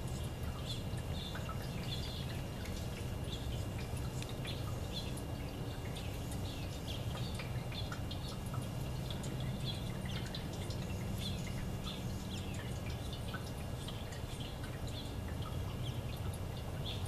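Water trickling and splashing from cup to cup of a tiered metal leaf fountain, over a low steady hum, with many short high bird chirps.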